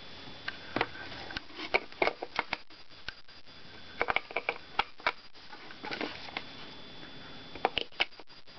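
A run of scattered plastic clicks and knocks as AA batteries are handled and pressed into the plastic battery compartment of a Sleepy Sounds Mickey Mouse nightlight, with the base being turned over in the hands.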